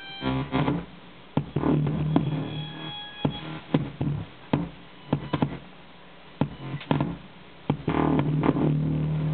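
Improvised instrumental music, muffled, made of sharp struck notes with two held low notes, one about a second and a half in and another near the end.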